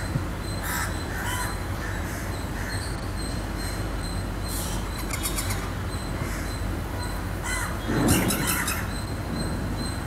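House crow giving its ordinary everyday caw, a recording played back over an online meeting's audio. Several separate calls, the loudest about eight seconds in.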